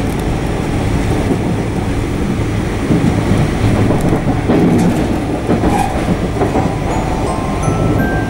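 Argo Anggrek express passenger train running along the track, heard from inside a carriage: a steady loud rumble of the wheels on the rails.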